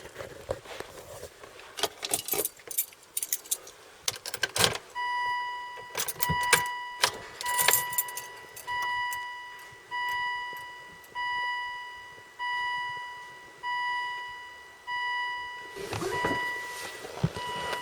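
Keys jangling and clicking, then a Volvo XC90's warning chime dinging steadily about once every 1.2 seconds, ten times, as the car is readied to start. A short rush of noise follows near the end.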